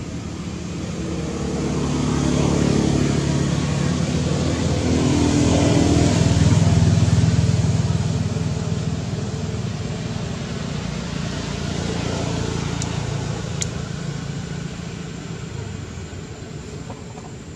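A motor vehicle's engine passing, its drone swelling over the first few seconds and fading away, with a smaller rise about twelve seconds in. Two short sharp clicks a little after the middle.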